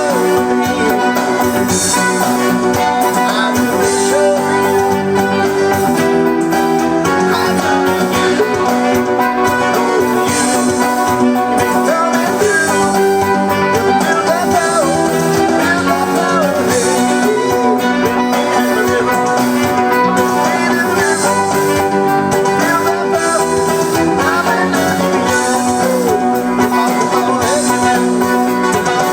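Keyboard music: a homemade MIDI backing track played from a Roland E-500 keyboard's floppy-disk sequencer, with sustained chords and a bending, guitar-like lead line over it, at a steady level.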